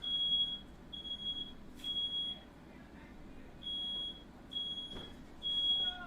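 Smoke alarm sounding its temporal-three evacuation pattern: three high, half-second beeps, a pause, then three more. It is set off by smoke from a house fire.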